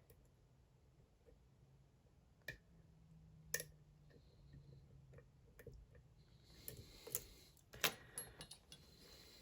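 Lock pick and tension wrench working the pins of a Dom IX Twinstar half-euro cylinder: faint, scattered metallic clicks, about a dozen, with a short stretch of light scraping in the last few seconds.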